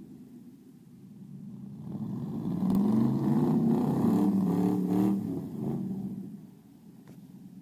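Pickup truck engine revving hard while its tyres spin in deep mud, stuck and being pulled out on a tow strap. The revs build about two seconds in, hold loud for a few seconds and die away near the end.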